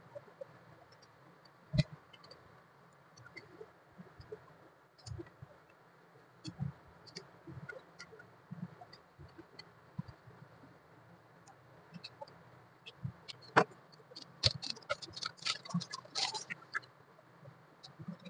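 Handling of a small cellophane-wrapped cardboard box: scattered light taps and clicks, with a run of crinkling plastic wrap being peeled about three-quarters of the way through.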